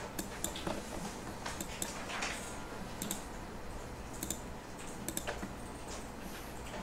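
Irregular clicks of a computer mouse and keyboard, about a dozen short sharp clicks over a faint low hum.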